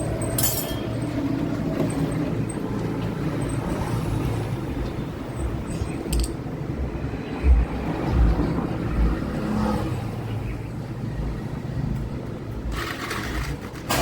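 Steady low hum of a motor vehicle engine running nearby, with a few short metallic clicks of tools as the Royal Enfield's oil filter cover plate is unbolted, and a brief hissing noise near the end.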